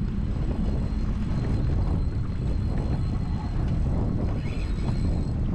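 Strong wind buffeting the microphone: a steady, loud low rumble out on open water.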